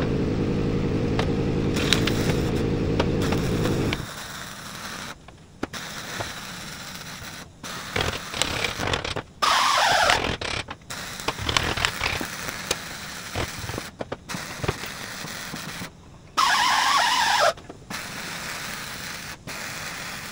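Metalwork on a tractor PTO driveshaft: a loud steady low rumble that stops about four seconds in, then scattered hammer knocks and metal clatter on the driveshaft yoke clamped in a bench vise, with a few short loud bursts of welding.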